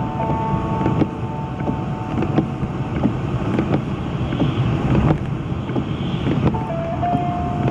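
Inside a moving car on a snow-covered road: a steady rumble of tyres and engine, with scattered knocks and thumps from the wheels going over the snow.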